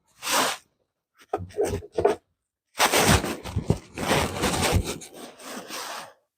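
Wooden fence boards being handled: wood rubbing and scraping against wood in five short bursts, with a few knocks.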